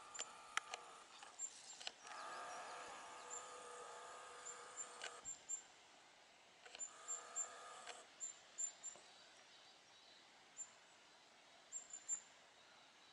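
Faint, very high, thin calls of a kinglet (Regulus), short notes given singly or in quick clusters throughout. A steady hum with a few level tones starts and stops abruptly twice, about two seconds in and again around seven seconds.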